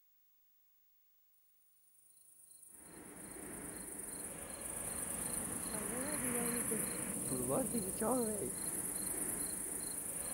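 Night crickets chirring steadily, fading in over the first few seconds, with a faint chirp pulsing about three times a second. A few faint distant calls rise and fall in the middle.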